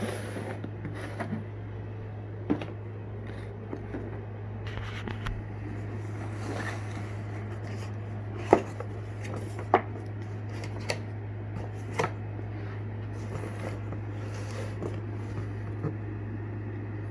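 Cardboard fishing mystery box (Monster Bass) being opened and handled by hand: scattered rustles, taps and light knocks, with two sharper clicks a little past the middle, over a steady low hum.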